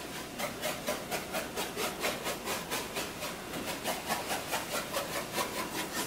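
Iron filings being shaken out of a small shaker container, a rhythmic gritty rasp about five strokes a second.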